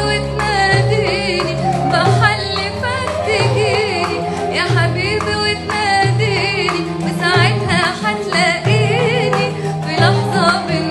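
A woman singing an Arabic love song in a wavering, ornamented melody over a backing track with a repeating bass line.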